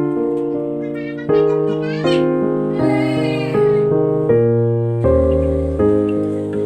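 Background music led by piano-like keyboard, a new note or chord struck about once a second and fading, with a few short sliding high notes near the middle.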